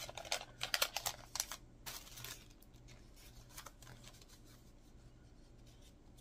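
Paper and plastic packaging crinkling and crackling as scrapbook sticker sheets and vellum bags are handled. There is a quick run of sharp rustles over the first two seconds or so, then only faint handling.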